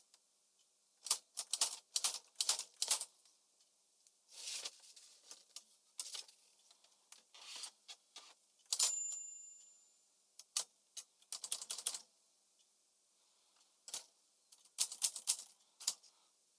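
Smith-Corona Calypso manual portable typewriter being typed on in short bursts of key strikes, with pauses between them. About nine seconds in, one strike is followed by a ringing tone fading over about a second, like the carriage bell.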